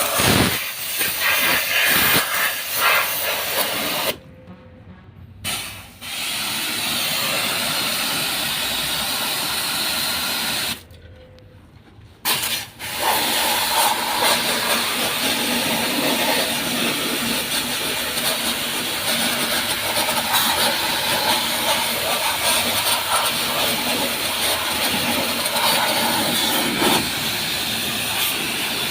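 High-pressure water spray hissing steadily as it washes an air conditioner unit, cutting off abruptly twice for a second or two before starting again.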